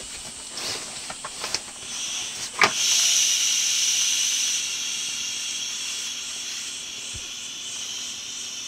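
Air hissing out of the open valve of a self-inflating camping mat as it is folded and rolled up to push the air out. Some handling rustles and clicks come first, then a sharp click, and the hiss starts loud and slowly fades.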